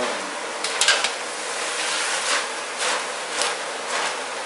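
Snacks deep-frying in a kadai of hot oil, a steady sizzle, with a few short scrapes and knocks as they are stirred.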